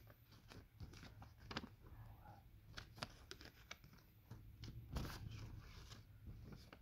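Faint rustling and crinkling of a paper banknote rubbed between fingers over fabric, a run of small crackles and clicks.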